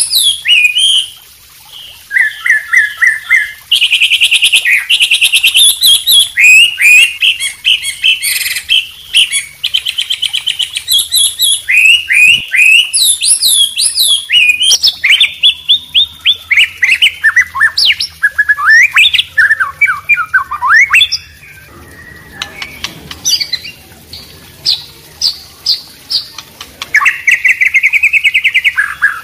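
Mixed songbird recording of a white-rumped shama, a yellow-vented bulbul and a wambi singing together: rapid chirped phrases, fast whistles and trills, with a brief lull about three-quarters of the way through and a long trill near the end. A faint trickle of water runs under the song.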